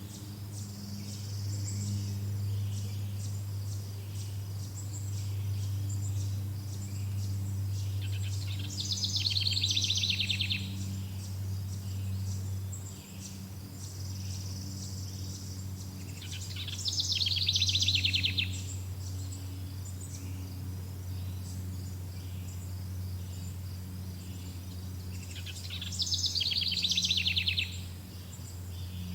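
Forest birdsong: one bird repeats a short, fast trilled song three times, about every eight or nine seconds. Under it run a steady high chorus of insects and a low, steady hum.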